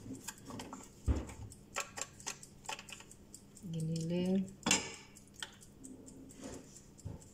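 Metal spoon clinking and scraping against a glass baking dish while ground meat is scooped, with scattered light clicks and knocks, a dull knock about a second in and a sharper clink a little past the middle.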